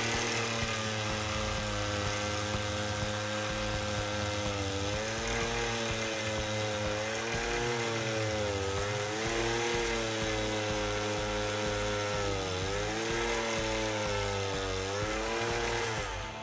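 Petrol engine of a handheld earth auger running at high revs, its pitch dipping several times as the bit loads up in the soil, cutting out at the very end. Background music with a steady beat plays underneath.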